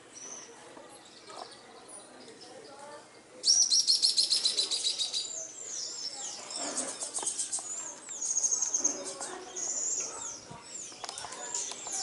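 Birds calling: a loud, rapid series of high notes starts about three and a half seconds in and lasts about two seconds, followed by many short, high, downslurred chirps and whistles.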